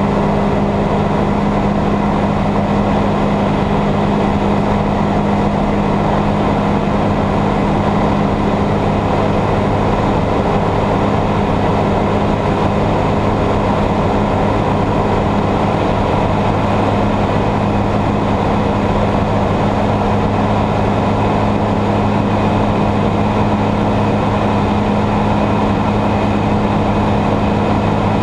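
Ultralight aircraft's engine and propeller droning steadily in flight, heard from inside the cabin as a loud, constant low hum with no change in pitch.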